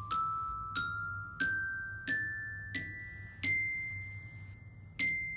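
Glockenspiel struck with a mallet, playing a C major scale upward one note at a time, about one note every two-thirds of a second, each note ringing and fading, up to the top C. After a pause of about a second and a half the top C is struck again as the scale begins back down.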